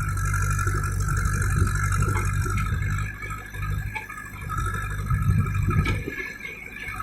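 JCB backhoe loader's diesel engine running, steady at first, then dipping and rising again under changing load, with a few light knocks.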